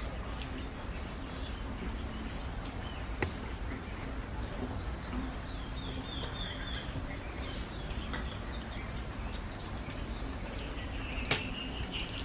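Small birds chirping in quick runs of short high calls, about four seconds in and again near the end, over a steady low hum with a few scattered sharp clicks.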